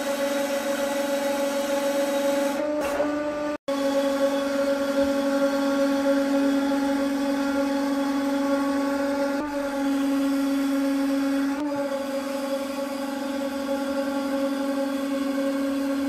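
Hydraulic press running with a steady droning hum, a low tone and its overtones, as it slowly squashes small metal pieces. The hum drops out for an instant about three and a half seconds in and shifts slightly in pitch twice later on.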